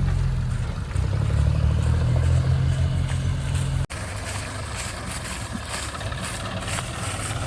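Heavy diesel machinery engine running steadily with a deep, low engine note. Just under four seconds in, the sound cuts off abruptly and resumes as a quieter, thinner engine sound.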